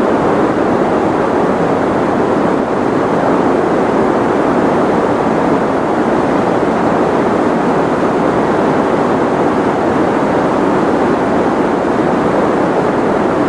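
Steady white noise for sleep: an unchanging, even hiss, fuller in the low and middle range with the highs rolled off.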